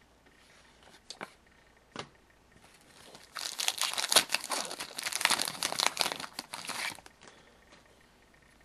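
Two light clicks, then several seconds of loud crinkling and crackling of a trading-card pack wrapper being torn open and handled.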